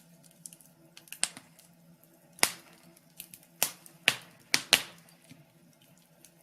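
Wood fire crackling in a fireplace: irregular sharp pops and snaps, several close together in the second half, over a faint steady hum.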